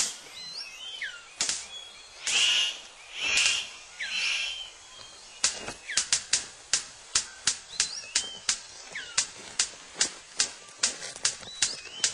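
Male superb bird of paradise displaying to a female: a few falling whistled calls and three harsh rasping calls, then a steady run of sharp clicks, about three a second, with more falling calls mixed in near the middle.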